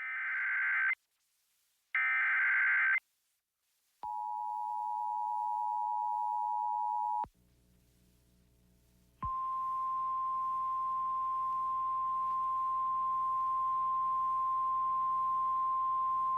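Emergency alert tones. Two one-second bursts of SAME digital header data come first, then about three seconds of the two-tone EAS attention signal. After a short pause comes the steady 1050 Hz NOAA Weather Radio warning alarm tone over radio hiss, which signals that a weather warning follows.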